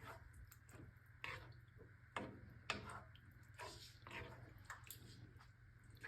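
Spoon stirring a thick meat sauce in a pot: soft wet squishes and scrapes with a few sharper clicks, loudest about a second in and between two and three seconds in, over a low steady hum.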